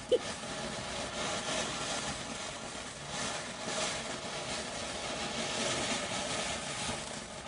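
Backyard firework fountain spraying with a steady rushing hiss, fading away near the end as it burns out.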